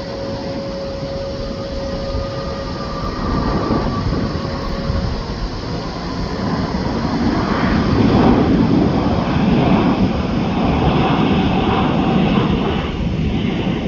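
Jet airliner engines passing close: a continuous rumbling roar that swells to its loudest about eight seconds in, with a steady whine that fades out about five seconds in.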